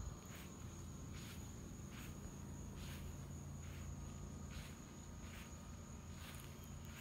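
Outdoor insect chorus: a thin, steady high-pitched drone with soft, regular pulses a little more than once a second, over a faint low hum.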